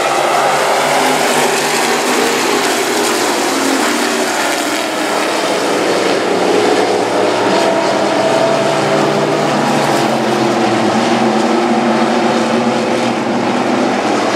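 A field of IMCA stock cars' V8 engines running together around a dirt oval, a steady blend of engines whose pitches drift slowly up and down as the cars pass.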